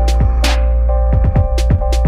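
Electronic background music: a steady beat of deep, downward-sliding kick drums and sharp percussion over held synth notes.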